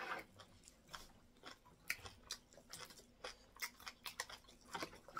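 Close-miked mouth sounds of eating semolina fufu with egusi soup by hand: chewing and wet lip-smacking, a faint string of soft, irregular clicks several times a second.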